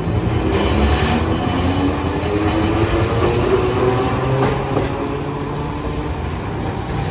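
Hiroshima Electric Railway 700-series streetcar no. 701 passing close by, its motor whine rising in pitch over the first four seconds or so as it picks up speed, over a steady rumble of wheels on the rails.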